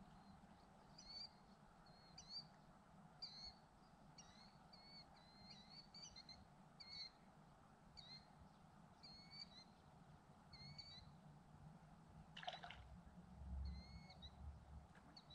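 Faint bird chirping: short calls repeated roughly once a second over a quiet steady background, with a single click about twelve seconds in.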